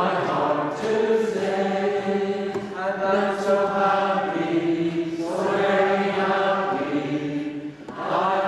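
Congregation singing a worship song together, holding long notes in phrases of a couple of seconds, with a brief break near the end.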